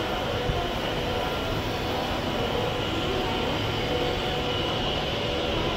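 Steady railway station ambience: an even rumble and hum with no clear single event.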